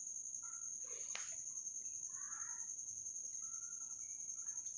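Steady high-pitched trill of crickets in the background, with a few faint short calls around two seconds in and a single soft click about a second in.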